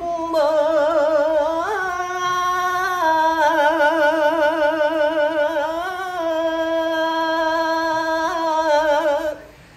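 An elderly man singing unaccompanied, drawing one syllable out into a long melismatic passage with a wide, steady vibrato. The held pitch steps up and down a few times before he breaks off for breath near the end.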